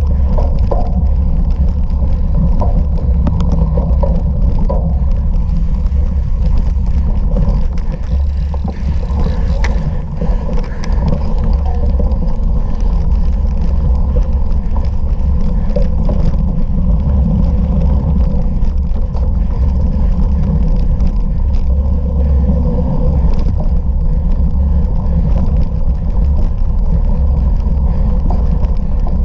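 Bicycle being ridden off-road: a steady low wind rumble on the microphone, with frequent small clicks and rattles from the bike over rough ground.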